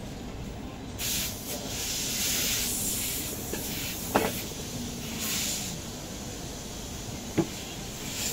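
Steam hissing in on-and-off bursts at a food-stall steamer, over a steady low kitchen background, with two sharp knocks about four and seven seconds in.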